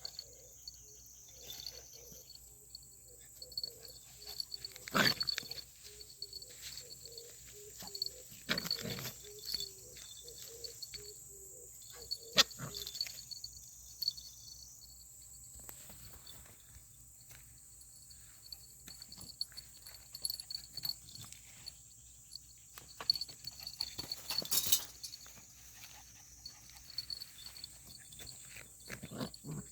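Dogs playing rough with each other: irregular short bursts of growling and scuffling noises, with quieter stretches between.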